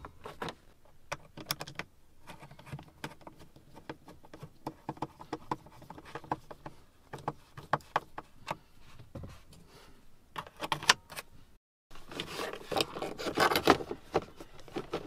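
Scattered light clicks, taps and small rattles from a car's dashboard heater control panel being handled and prodded with a small screwdriver. They grow busier near the end, and the sound drops out completely for a moment about two-thirds through.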